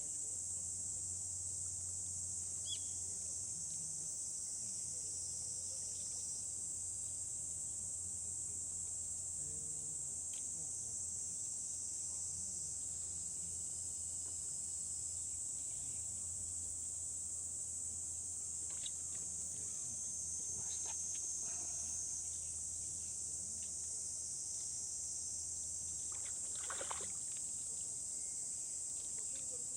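Steady high-pitched drone of insects, unbroken throughout, with a few faint short taps or clicks in the second half.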